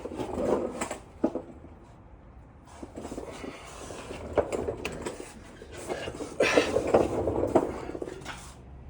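Handling noises: irregular knocks, rattles and rustling, busiest and loudest about six to eight seconds in, with a few sharp clicks.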